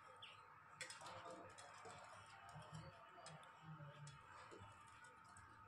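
Near silence: faint scattered clicks and light scrapes of a wooden spatula stirring a thin fish curry in a nonstick pan, over a faint steady high hum.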